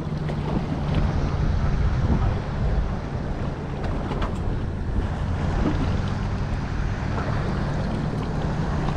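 A boat's engine running at a steady low hum, with wind buffeting the microphone and the wash of water around the boat.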